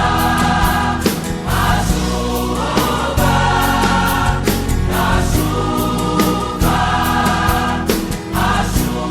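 Gospel worship backing track transposed two tones down: full band with regular drum hits under held choir-like backing voices, with no lead vocal.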